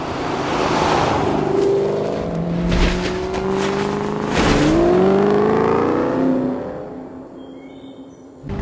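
Ford Mustang sports car engine accelerating hard, its pitch climbing, dropping sharply at a gear change about four and a half seconds in, then climbing again before the sound fades near the end.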